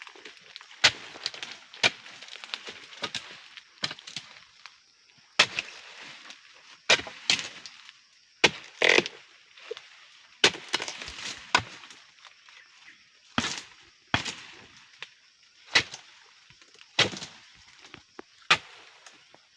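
Oil palm fronds or stalks being hacked with a blade: a series of sharp chopping strikes at uneven intervals, roughly a second apart, with crackling and splintering of the plant material between blows.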